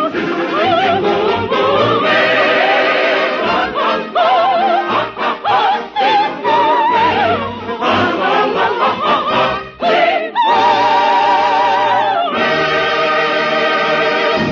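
An operatic soprano, with choir and orchestra, sings a fast, lilting Italian-style street song, heard as an early-1950s radio broadcast recording. Near the end she holds a long note, and the piece closes on a big held chord from the whole ensemble.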